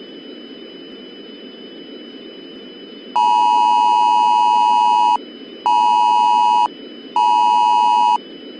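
Electronic emergency alert tone sounding three times over a steady static hiss: one beep of about two seconds, then two one-second beeps, each stopping abruptly. The beeps are buzzy, made of two close notes near 1 kHz.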